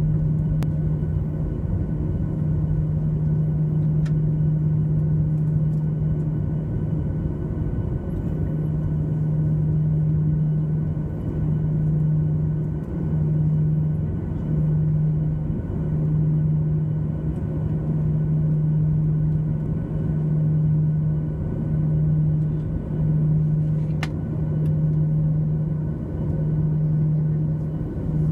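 Steady low drone inside a Boeing 737-900's passenger cabin during de-icing, a deep hum over a rumble that begins to throb about every second and a half from about eight seconds in.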